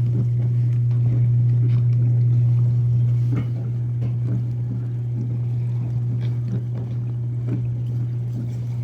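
Whirlpool dishwasher running its cycle: a steady low hum from the pump motor, with water splashing and light ticks over it. The level drops slightly about three seconds in.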